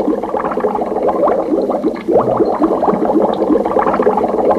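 Cartoon underwater bubbling sound effect: a dense, steady run of quick rising blips, like bubbles gurgling up through water.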